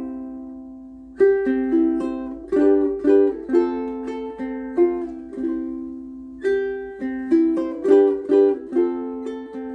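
Koaloha Opio ukulele strung with Aquila B-Black strings, played solo: a chord rings out and fades, then a picked melody with chords starts about a second in. About six seconds in, a new chord rings out and more notes follow.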